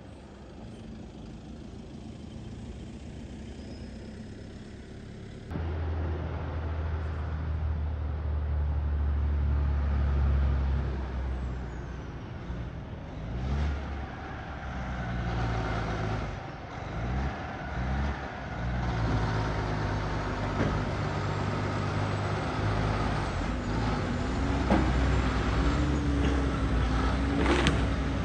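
Heavy-haulage prime mover's diesel engine running as the truck hauling a locomotive on its trailer approaches, louder from about five seconds in. The engine note shifts and dips a few times in the middle, and a short air-brake hiss sounds near the end.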